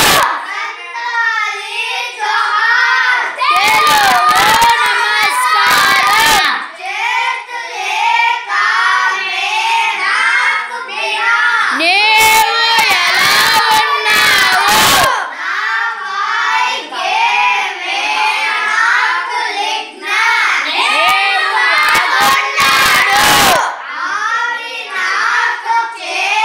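A group of schoolchildren chanting and singing loudly together in a classroom, with stretches of rapid hand-clapping in time with the chant.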